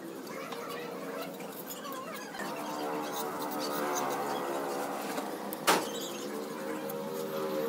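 Mason's steel trowel scraping and tapping mortar on bricks, with scattered small clicks and one sharp clack about two thirds of the way in. A steady droning hum with several pitches runs underneath.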